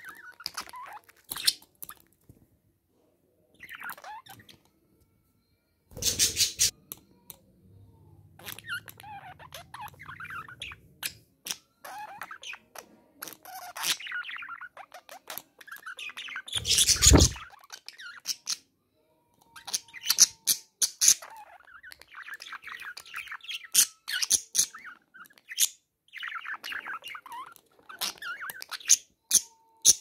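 A budgerigar chattering to its reflection in a mirror: a steady run of soft warbles, chirps, short squawks and quick clicks. Two louder bumps come about six and seventeen seconds in.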